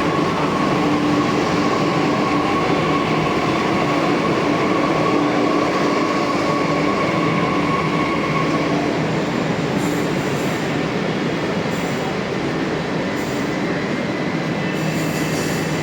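Metro train running on its rails: a steady rushing rumble with a faint steady whine that fades out about nine seconds in.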